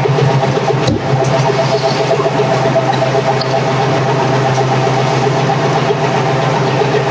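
Machinery running steadily with a constant hum, with a sharp click about a second in.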